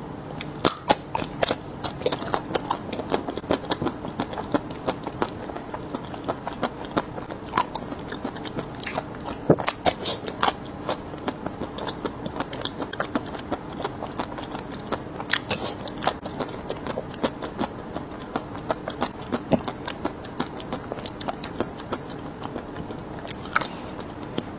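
Close-miked biting and chewing of chocolate-coated ice cream bars with a speckled chocolate shell: irregular sharp crackling clicks as the shell breaks, with softer wet chewing between them.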